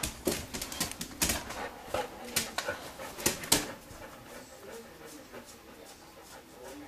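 A dog whining and whimpering, excited, with a quick series of sharp clicks and taps over the first few seconds.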